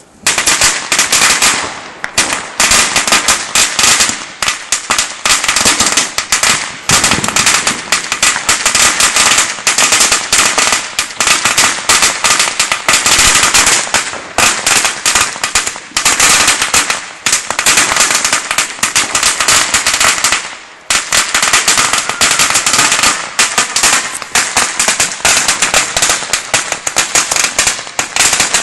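A long string of firecrackers going off in a rapid, continuous crackle of bangs, starting abruptly and briefly thinning about twenty seconds in before carrying on.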